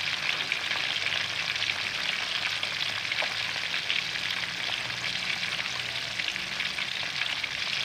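Whole yellowtail scad (salay-salay) frying in hot oil in a wok: a steady, dense sizzle with a constant fine crackle of bubbling oil.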